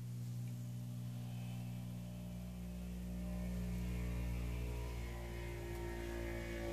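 A steady low hum made of several held pitches, with a deeper rumble growing stronger about two seconds in.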